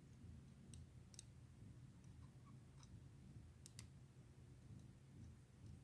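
Faint, scattered light clicks of a lock pick and tension tool working the pins of a pin tumbler lock, with a sharper pair of clicks a little past the middle.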